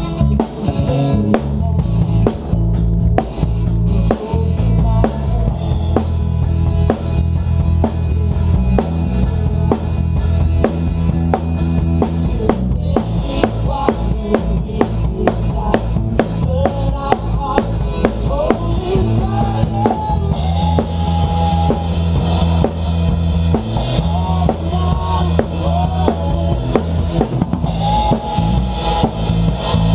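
Live band music heard close up from the drum kit: a steady kick-and-snare beat leads. Cymbals wash in about halfway through, drop out briefly, and come back near the end.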